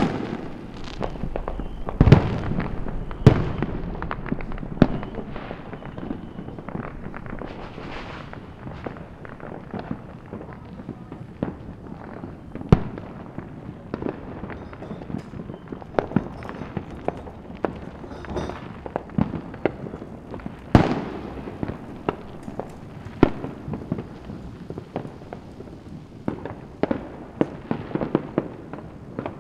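Many fireworks going off at once: a continuous crackle of pops and bangs, with heavier booms about two seconds in, a second after that, and again around twenty seconds in.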